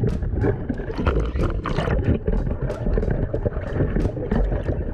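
Strong wind buffeting the microphone while waves splash and slap around a sea kayak in rough surf, with a constant heavy rumble and frequent sharp splashes.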